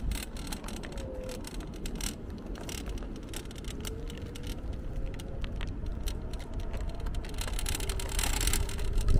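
Riding an electric scooter: wind rumble on the microphone, with frequent rattling clicks and a faint whine that rises slowly in pitch midway.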